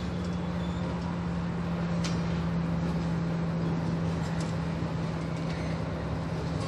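Railpower genset diesel locomotive running with a steady low hum that sags slightly in pitch, with a few faint clicks.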